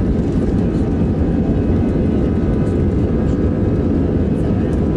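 Airbus A320 jet engines and airframe heard from inside the passenger cabin as the airliner moves along the ground: a loud, steady rumble with a faint whine above it.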